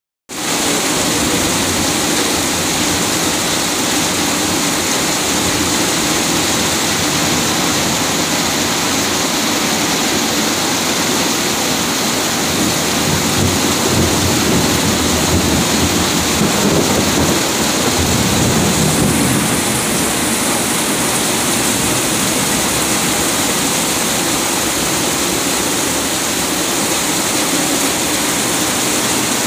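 Heavy tropical rain pouring down steadily, with runoff streaming off the roof eave close by. A low rumble rises and fades around the middle.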